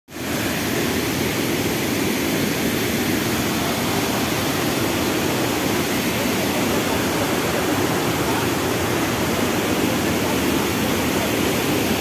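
Steady, even rush of falling water from a waterfall close by, unchanging in level.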